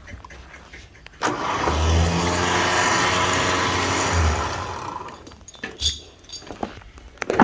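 Winch running under load for about four seconds, pulling the chicken coop: a loud mechanical whir with a low hum that starts suddenly and fades out.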